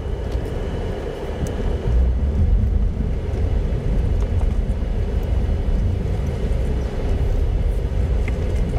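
Car on the move: a steady rumble of engine and road noise.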